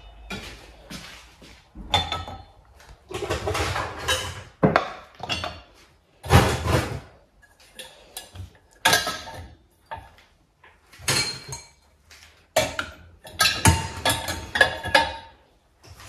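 Dishes being loaded into a dishwasher's wire upper rack: a run of irregularly spaced clatters and clinks as steel bowls, a steel pot and drinking glasses are set down against the rack and each other.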